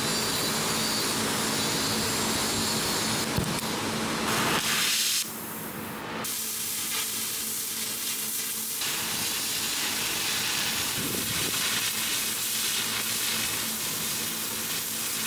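Oxy-fuel cutting torch hissing steadily as its flame and cutting-oxygen jet cut through steel plate, a little quieter from about five seconds in.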